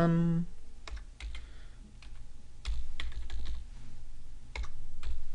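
Typing on a computer keyboard: a phone number being keyed in, the key presses coming singly and in short runs with pauses between.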